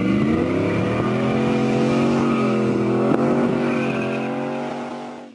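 Pickup truck's engine pulling hard as the truck accelerates toward the camera, its note rising over the first second, holding, then climbing again before fading and cutting off at the end.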